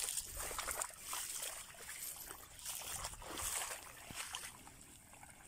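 Faint sloshing and trickling of shallow water around an outrigger boat, fading to near silence near the end.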